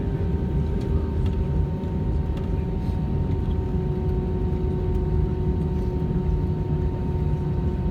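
Airbus A320-200 with its engines running at low power, heard as a steady low rumble with a few held hum tones, typical of taxiing.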